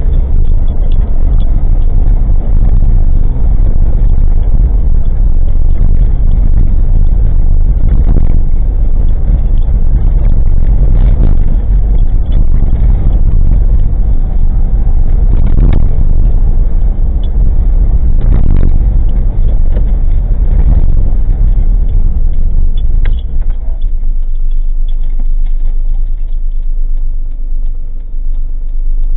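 Cabin sound of a very old Suzuki Jimny kei car driving, recorded by a cheap dashcam: a loud, steady engine and road rumble with things rattling and several thumps, easing off near the end.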